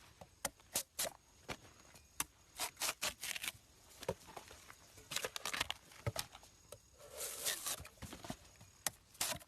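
Giant panda eating: irregular crunching and cracking clicks as it chews, with a short rustle about seven seconds in.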